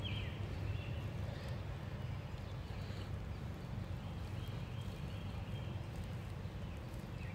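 Steady low rumble of wind on the microphone, with soft footsteps on a gravel road and a few faint bird chirps.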